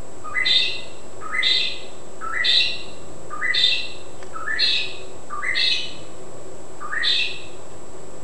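A bird calling over and over: seven short, rising calls about a second apart, over a steady background hiss.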